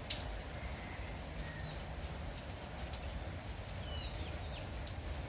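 Light morning drizzle pattering steadily, with small birds giving a few short chirps and whistles. Scattered taps run through it, the loudest a single sharp tap just after the start.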